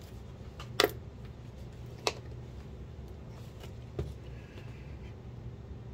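A plastic squeeze bottle and tools being handled on a cutting mat: three sharp clicks, the loudest about a second in, the last fainter near the end, over a steady low hum.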